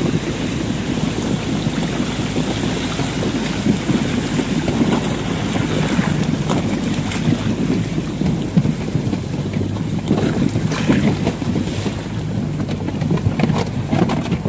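Outboard motor of a Zodiac inflatable boat running steadily as it pushes through brash ice, with wind buffeting the microphone and water rushing past. Several sharp knocks in the second half.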